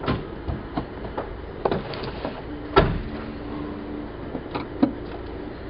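Clicks and knocks of a screwdriver and hands working the screws of a door pocket on a VW Type 2 door card, with one louder knock about three seconds in. A steady low tone sounds briefly around the same time.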